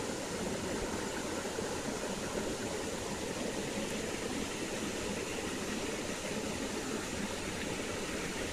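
Shallow stream water running steadily over a rocky bed, a continuous even rushing.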